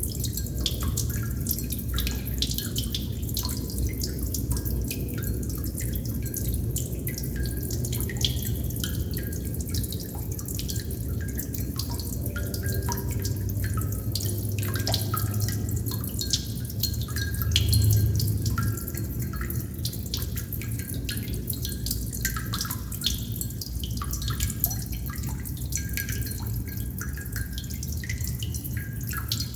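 Water droplets falling and dripping irregularly: many small plinks and ticks at uneven intervals. Under them runs a steady low rumble that swells briefly a little past the middle.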